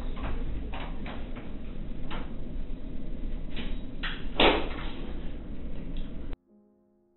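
An interior door opening and swinging shut, with a few scattered knocks and rustles over a steady hiss and hum of room noise; the loudest knock comes about four seconds in. The sound cuts off abruptly near the end.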